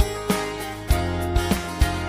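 Background music with a steady drum beat under held chords; the chord changes about a second in.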